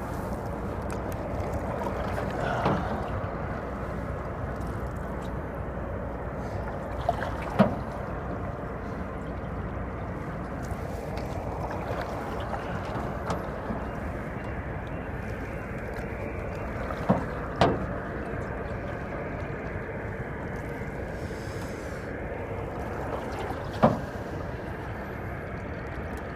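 Water lapping and sloshing against the hull of a small sailing canoe as it rocks with its leeboard raised, with a few sharp knocks against the boat now and then.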